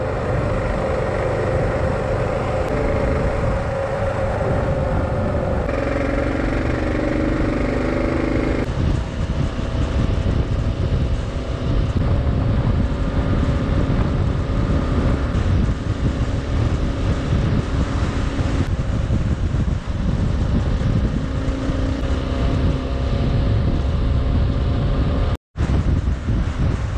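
Kawasaki KLR 650's single-cylinder four-stroke engine running at steady cruising speed, mixed with heavy wind rumble on the microphone. The sound cuts out for a moment near the end.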